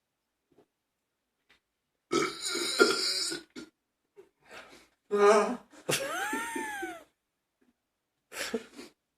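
A series of human burps: a long one about two seconds in, another about five seconds in that runs straight into a burp whose pitch slides up and then down, and a shorter one near the end.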